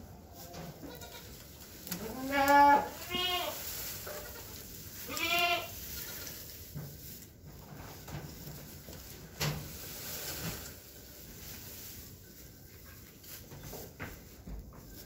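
Goats bleating: a loud bleat about two seconds in, a shorter one just after, and another about five seconds in, then a single knock near the middle.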